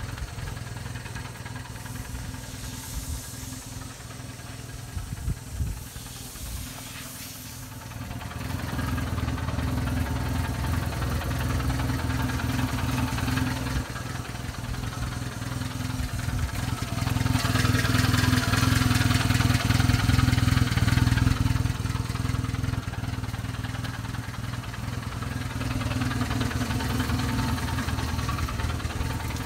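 The 1993 Subaru Sambar KS4's EN07 660 cc four-cylinder engine idling steadily. It grows louder from about eight seconds in and is loudest around the middle, with a hiss mixed in, before easing back slightly.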